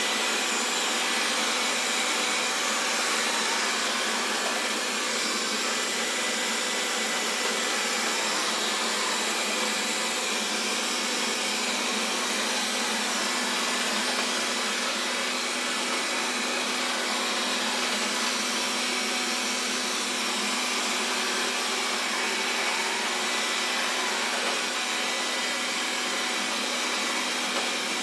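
Xiaomi Mi Robot Vacuum running, a steady whirring hiss with a constant low hum.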